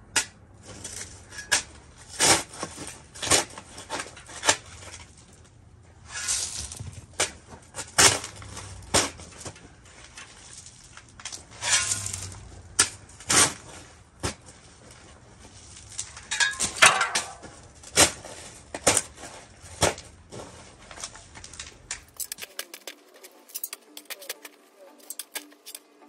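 Steel shovel digging into rocky clay soil: sharp metallic clinks as the blade strikes stones, about once a second, with longer scraping scoops between. Near the end it gives way to background music.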